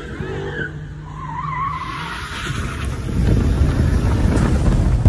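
Dodge Charger doing a burnout in circles: engine held at high revs while the rear tyres spin and squeal on the pavement. It gets louder and rougher about three seconds in.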